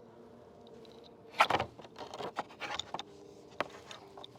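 Block-and-tackle pulley and rope hardware being handled. A quick cluster of clicks and knocks comes about a second and a half in, then scattered lighter clicks and rattles, over a faint steady hum.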